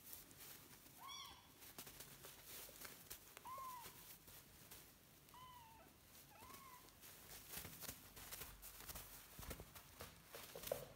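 Faint, short high mews from young kittens, four of them spread out with a short lower one near the end, over light scratching and rustling as they play on a puppy pad.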